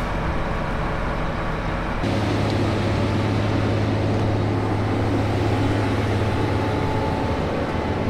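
Case IH combine's diesel engine running with a steady hum as the combine drives past. About two seconds in, the sound changes abruptly to a louder, deeper, even engine drone.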